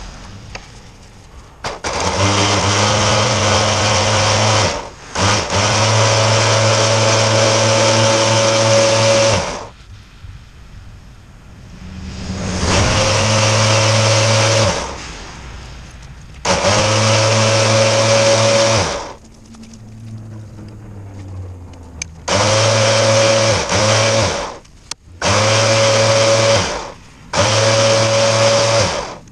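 Sherpa Stallion 25,000 lb electric winch motor running in repeated bursts of a few seconds, spooling 3/4-inch synthetic rope onto its drum. Each run is a steady whine over a low hum, starting and stopping sharply, with short pauses between runs.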